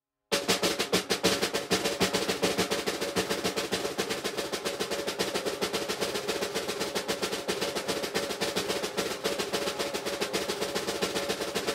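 Fast, even drum roll of sharp snare-like taps, starting after a moment of silence and holding a steady level.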